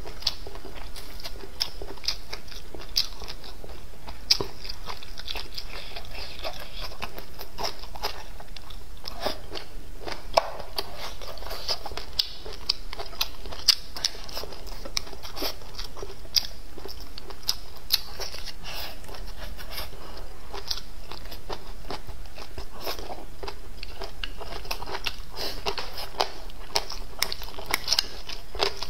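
Close-up eating sounds: biting into and chewing cured pork tail and peppers, with wet mouth smacks, crunches and frequent sharp clicks over a low steady hum.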